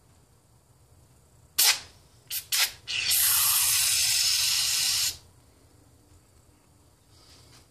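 Aerosol can of engine degreaser spraying: one short blast, two quick spurts, then a steady spray of about two seconds that stops abruptly.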